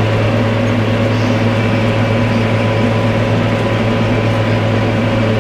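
Tractor engine running steadily while mowing hay, heard from inside the cab as an even, constant drone.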